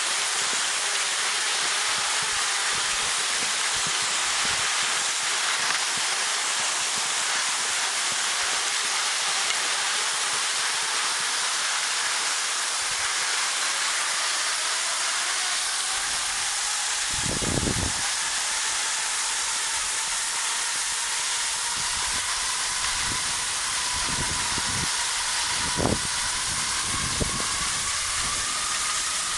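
Skis gliding over snow in a steady hiss, with a couple of dull low thumps in the second half.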